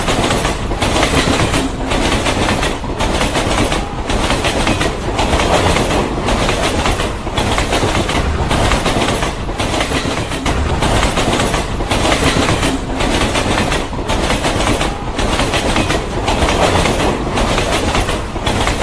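Train running along the track, with a steady rumble and the wheels clattering over the rails.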